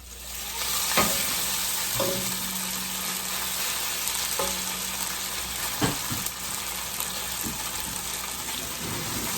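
Beef stir-frying in hot oil in a pan: a steady sizzle that swells in the first second, with a few sharp knocks of the spatula against the pan as the meat is stirred.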